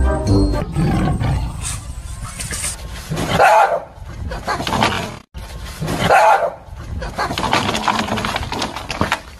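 Dogs barking and snarling in alarm, with two loud outbursts about three and a half and six seconds in and a brief break between them.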